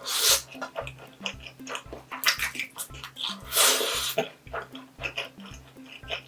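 Spicy instant ramen noodles slurped noisily off chopsticks right at the start and again about three and a half seconds in, with short wet chewing clicks between. Background music with a steady low beat plays throughout.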